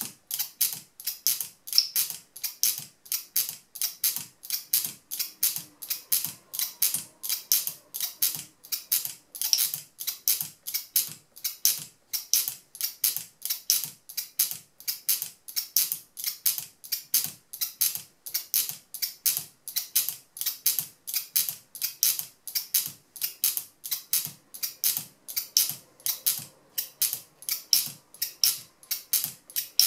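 Locking mechanism of a Turquaz speargun camera mount snapping open and shut over and over on a speargun barrel: sharp, even clicks, about two a second.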